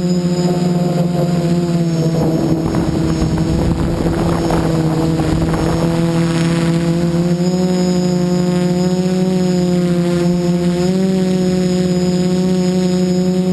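Xaircraft X450 Pro quadcopter's brushless motors and propellers humming steadily in flight, with small shifts in pitch as the throttle changes. A rushing wind noise sits over it for about the first half, then fades.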